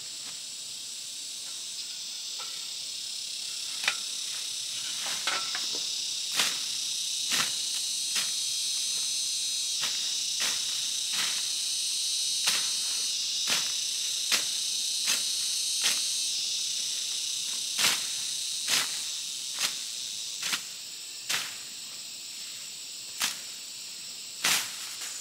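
Machete chopping through ferns and undergrowth, sharp strokes about once a second starting about four seconds in, over a steady high drone of insects.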